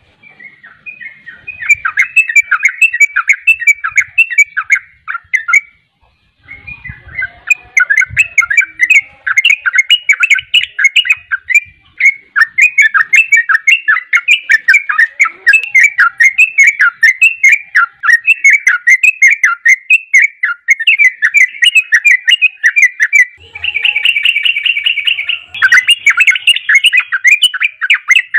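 Yellow-vented bulbul (trucukan) singing a long, rapid run of chattering notes. There is a short pause about six seconds in, and a fast, even trill comes near the end.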